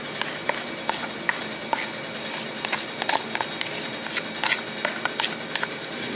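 A utensil clicking and scraping against a stainless steel mixing bowl as a chopped chicken and nopales salad is stirred: irregular light clicks, several a second, over a steady background hum.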